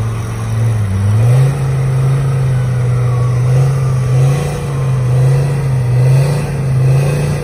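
Off-road vehicle engine revving hard and held at high revs, its pitch stepping up about a second in and then wavering slightly, as the vehicle strains to get out of deep mud.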